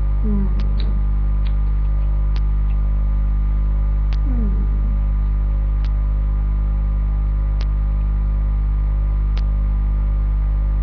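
Loud steady electrical mains hum at 50 Hz with its overtones, with a faint sharp click repeating about every second and three-quarters. A short hummed "mm" twice, near the start and about four seconds in.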